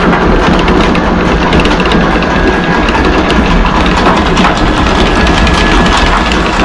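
Electric anchor windlass running steadily, hauling the anchor chain in over its gypsy and down into the chain locker as the anchor is raised.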